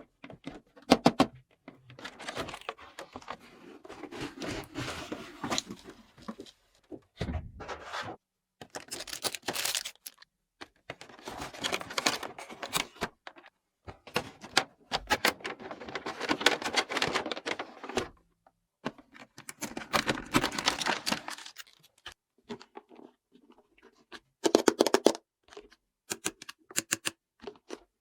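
Small plastic toy pieces clicking and tapping as they are handled, between several stretches of rustling packaging, each a second to a few seconds long.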